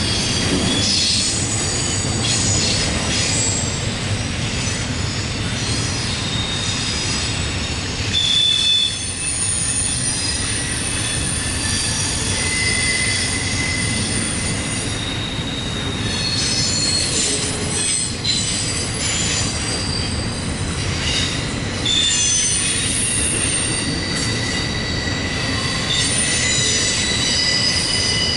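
Intermodal freight train's cars rolling through a curve, the wheels squealing in several overlapping high-pitched tones that come and go over a steady rumble.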